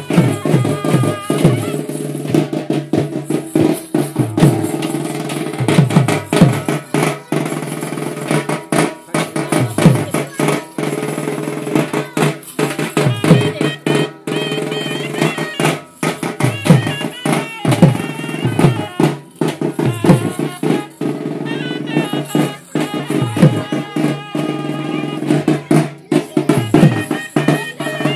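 Traditional music with fast hand-drumming: many quick strokes, low drum notes that slide down in pitch, and a wavering high melody line over it.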